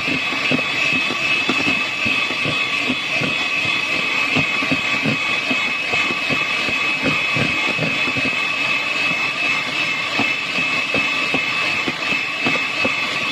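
Electric hand mixer running steadily with a high motor whine, its beaters whisking a foamy egg-and-sugar cake batter with irregular light knocking in the bowl.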